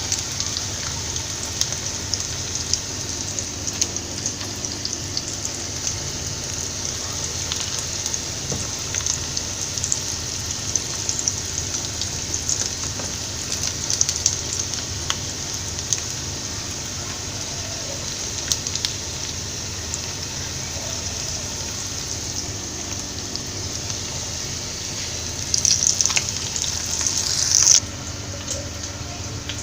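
Chicken pieces frying in hot oil in a pan: a steady sizzle with many small crackles, which swells louder near the end and then cuts off abruptly.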